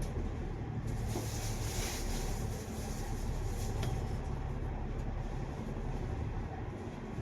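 Engine and road noise heard from inside a moving double-decker bus, a steady low rumble, with a brief hiss from about one to two and a half seconds in.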